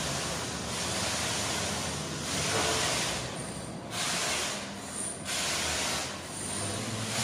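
Quiet city street ambience: a low steady hum of distant traffic under a hiss that swells and fades about once a second.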